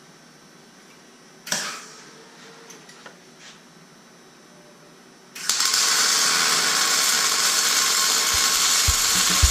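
A short knock, then about five and a half seconds in an electric welding arc strikes and crackles steadily while a subframe connector is welded to the car's frame. Music with a drum beat comes in under it near the end.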